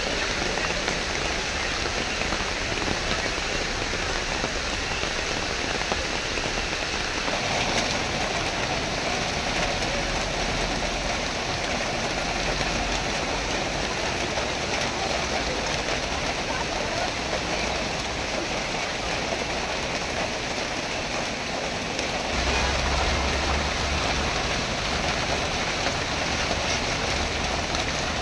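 Steady, continuous rain pouring onto a wet road. In the last few seconds a car passing on the wet road adds a low rumble.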